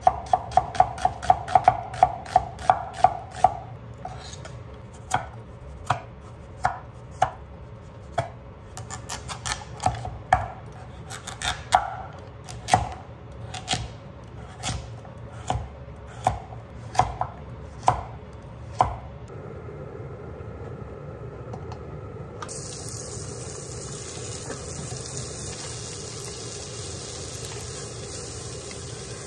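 Kitchen knife chopping on a wooden end-grain cutting board: a quick run of strokes slicing an onion, about three a second, then slower, single cuts through kabocha squash, about one to two a second. The cutting stops a little past halfway and a steady hiss follows.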